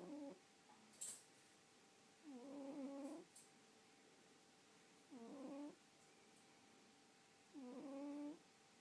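A sleeping pet snoring in slow, even breaths: one drawn-out, pitched snore about every two and a half seconds. A short sharp click about a second in.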